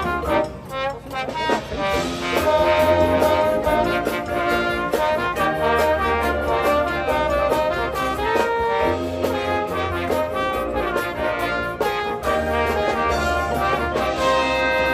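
Marching band brass playing loud held chords over low percussion and front-ensemble accompaniment, ending on a sustained chord near the end.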